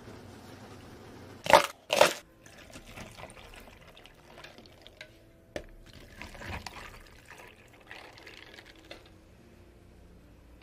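Milk tea being poured from a plastic pitcher into plastic cups of ice, in short pours. Two loud knocks come close together about a second and a half in.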